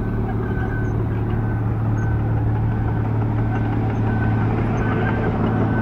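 Heavy diesel engine of a Wirtgen 2 m cold milling machine running steadily with a deep hum. A faint high beeping repeats about twice a second over it.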